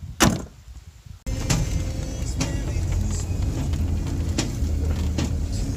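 A sharp thump, then the steady low rumble of road noise inside a moving Chevrolet Tahoe's cabin, with a few brief knocks.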